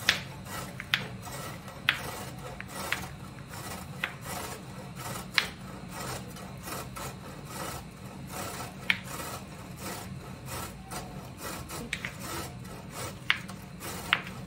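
Cauliflower being grated on a metal box grater: a steady rough rasping, broken by occasional sharp taps at irregular intervals, roughly one a second.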